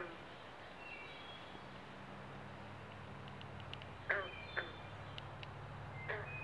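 Frogs calling in a pond: a few sharp, twanging calls that drop quickly in pitch, one at the start, a pair about four seconds in and another near the end. Faint high bird notes and a low steady hum run underneath.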